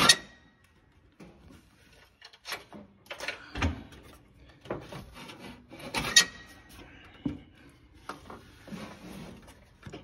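Irregular scraping and rubbing with a few sharp clicks and knocks as a replacement PTO engagement cable is worked into its mounting hole on a lawn tractor's frame.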